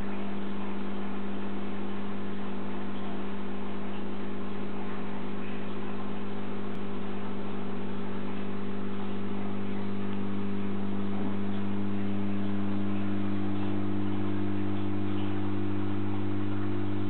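Reef aquarium pumps running with a steady low electrical hum over a constant hiss; a second, higher hum tone joins about ten seconds in.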